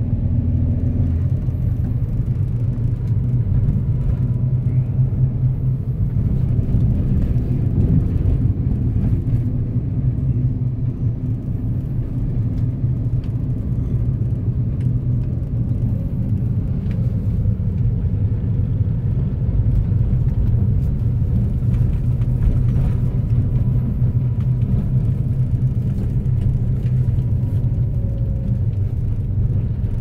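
Steady low rumble of a car driving, with no change in level throughout.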